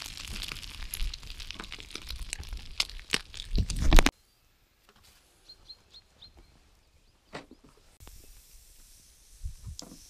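Food frying in a pan, a dense sizzle with sharp crackles and pops, cutting off abruptly about four seconds in. After that only a few faint clicks and ticks.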